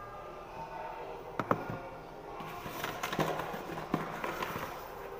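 Packaging being handled: a couple of sharp clicks about a second and a half in, then a dense crinkling rustle full of small crackles for about two and a half seconds as an item is pulled from the wrapping.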